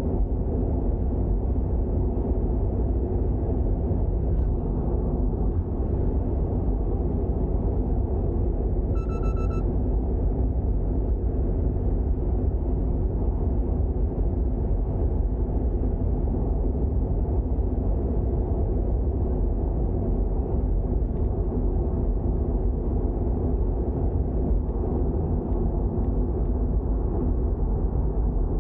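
Toyota GR86's 2.4-litre flat-four engine running steadily with road noise as the car drives at an even pace. A brief beep sounds once about nine seconds in.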